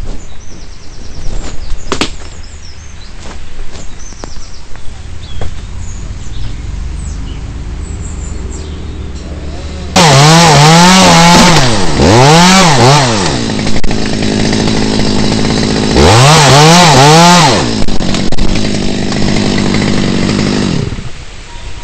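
A chainsaw comes in loud about halfway through, revving up and down twice with its pitch rising and falling and running hard between, as it cuts into poplar wood; it drops away near the end.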